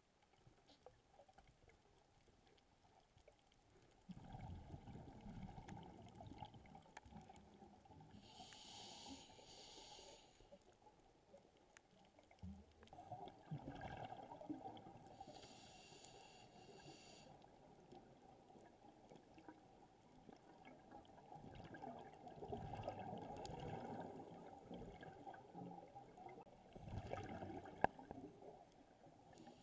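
Faint underwater sound of a scuba diver breathing through a regulator: gurgling exhaled bubbles that come and go in long stretches, with a short hiss of air through the regulator twice.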